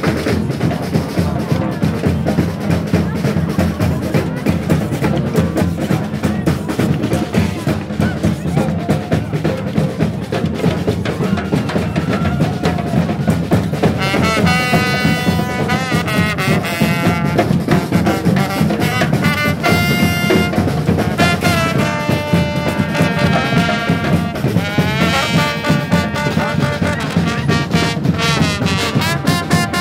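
Street brass band playing: drums keep a steady beat throughout, and the horns come in strongly about halfway through, with some sliding notes near the end.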